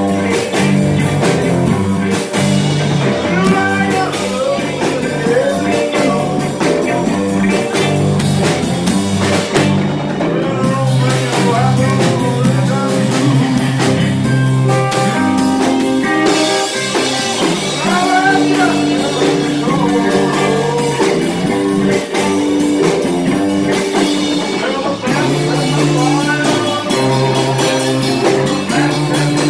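Live swamp pop band playing: electric guitars, bass guitar and drum kit, with a man singing.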